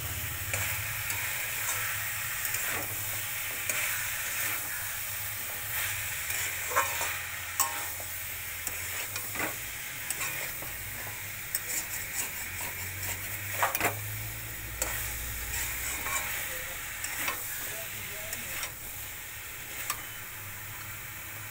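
Cauliflower, baby corn and other chopped vegetables sizzling in a wok while a metal spatula stirs them, scraping and clicking against the pan now and then. A low steady hum runs underneath.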